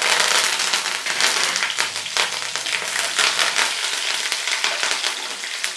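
Fresh curry leaves sizzling and crackling in hot oil, a dense run of small sharp pops that starts abruptly as they hit the oil and eases slightly as it goes on.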